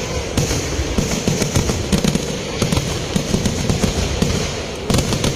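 Kerala temple-festival fireworks: a dense, continuous salvo of firecracker bangs, many a second, going off without a break.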